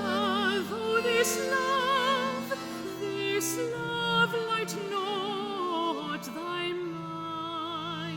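Early-music consort song: a solo singer holds long notes with wide vibrato over a consort of viols playing sustained chords.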